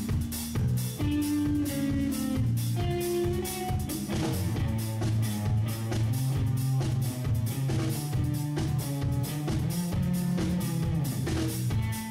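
Instrumental progressive rock played by a trio: an electric guitar melody over a bass guitar line and a busy, driving drum kit.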